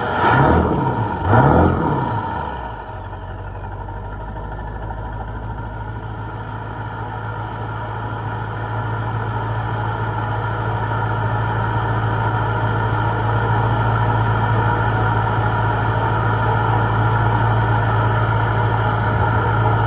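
Ford 7.3 Power Stroke turbo-diesel V8, fitted with a 6.0 Power Stroke intercooler, revved briefly twice near the start, then running steadily as the sound slowly grows louder.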